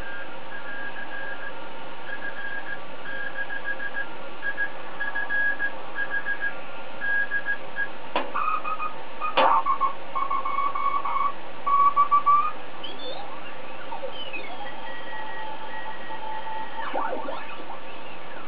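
Morse code (CW) signal coming from the loudspeaker of a Hallicrafters S-86 valve shortwave receiver, a keyed beat note sounding in dots and dashes over steady band hiss. About eight seconds in, a couple of sharp clicks are heard and the keyed note continues at a lower pitch. Near the end, tuning across the band brings gliding heterodyne whistles that sweep up and down.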